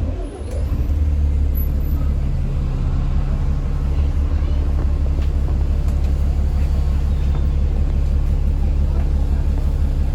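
Alexander Dennis Enviro 400 MMC double-decker bus engine running steadily with a loud, low drone and a steady hum, coming in abruptly at the start and holding an even pitch throughout.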